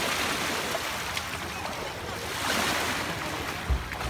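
Water splashing as people wade quickly through shallow sea water, over the wash of small waves at the shore, with a short low thump near the end.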